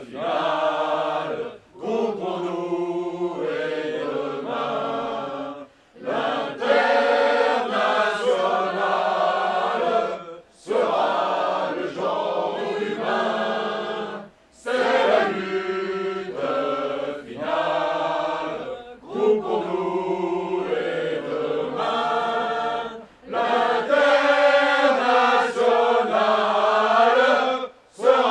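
A mixed group of men and women singing a song together in unison. The song comes in phrases of about four seconds, with a short break for breath between each.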